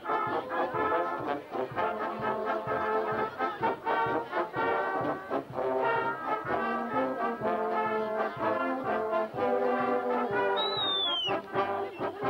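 Brass band playing a tune, trumpets carrying the melody over lower brass such as a euphonium.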